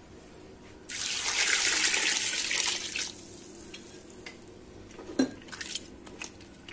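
Water pouring and splashing into a large pot of pine cones for about two seconds, followed by a few light knocks.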